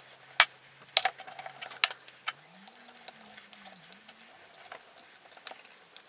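Small screwdriver backing screws out of plastic football visor clips: quick, irregular clicks and light knocks of metal bit and plastic parts.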